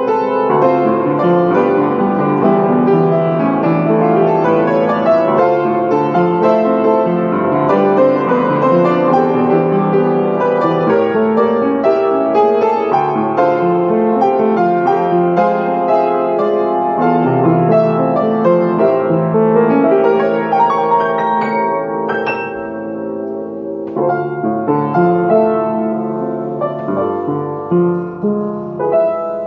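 Upright piano played solo, a melody over full sustained chords, growing softer and sparser in the last few seconds.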